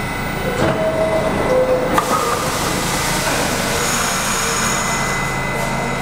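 R68 subway train standing at a station platform, its equipment giving a steady hum with a high whine. About a second in come two short tones, the second lower than the first, and a click follows at about two seconds.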